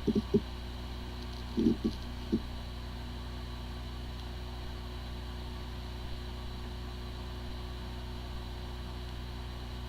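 Hard disk drive spinning with a steady hum, with a few short low knocks in the first two and a half seconds. It is the sound of a drive with corrupted disk firmware: it spins up fine but no computer can access it.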